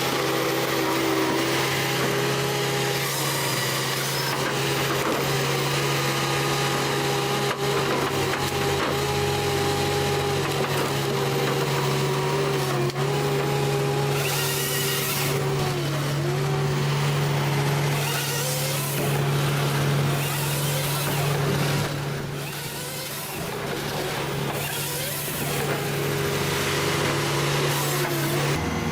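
A machine's engine running steadily, with a constant low hum and tones that dip briefly now and then as it takes load, over a dense wood-cutting noise.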